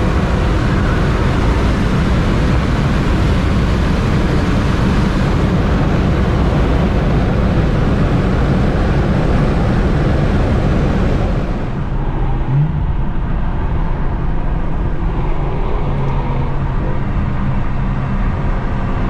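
Car engine running under way with heavy road and wind noise. About two-thirds through, the hiss drops away and a lower engine sound carries on.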